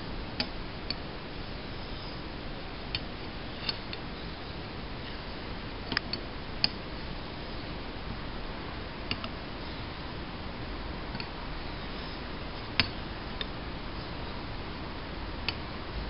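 Straight razor being honed on a Thuringian water hone: short light clicks, about a dozen at uneven spacing, some in pairs, as the razor's metal touches down on the stone between strokes, over a steady hiss.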